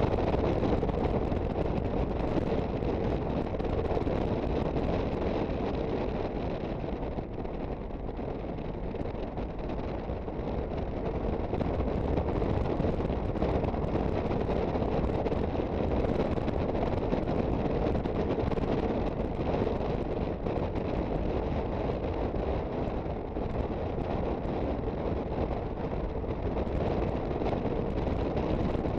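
Aprilia Sportcity Cube 250 scooter under way, its engine and road noise blended with steady wind rush on the microphone, easing slightly partway through and then picking up again.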